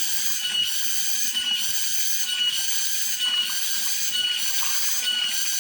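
Cicadas (tonggeret) singing: a steady high-pitched buzz that dips and swells in a regular pulse about once a second.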